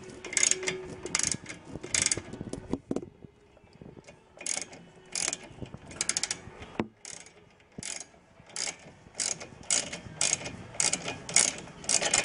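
Socket ratchet clicking in repeated back-and-forth strokes, about one every two-thirds of a second, as it backs out an already-loosened 12 mm bolt on the ABS sensor line bracket; the strokes pause briefly about three seconds in, then carry on.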